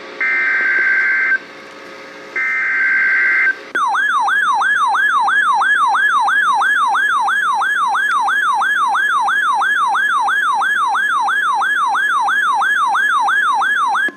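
Emergency weather radio alert: two SAME digital header bursts, each about a second long, then a siren-like alarm tone warbling up and down about two and a half times a second for about ten seconds. The tone cuts off suddenly near the end. Together they signal an incoming severe thunderstorm warning.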